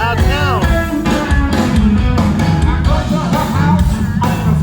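Rock band playing live: electric guitar lead with bent notes over bass and drums.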